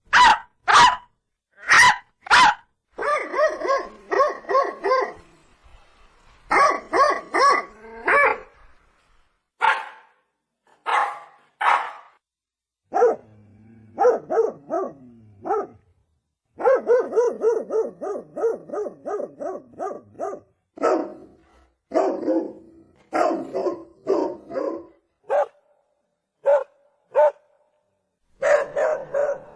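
Dogs barking: a few sharp single barks, then quick runs of rapid barking, separated by short pauses.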